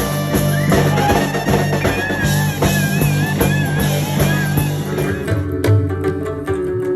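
Band music: guitar over a drum kit, with a wavering high melody line. About five seconds in it thins to a sparser passage of low plucked notes.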